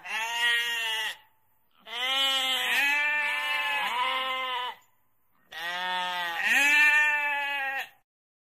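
Sheep bleating: three long, quavering baa calls with short pauses between them.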